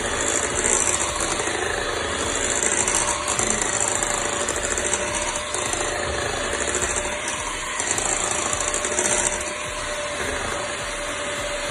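Electric mixer running steadily, beating cake batter, with a faint steady whine from its motor.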